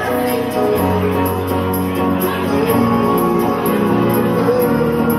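Music with a steady beat and a sustained melody.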